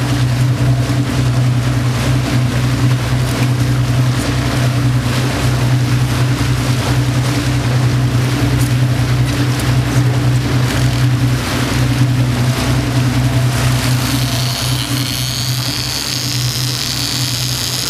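Motorboat engine running steadily at slow trolling speed, a constant low hum with a pulsing rumble beneath, with water and wind noise. A higher, wavering whir comes in near the end.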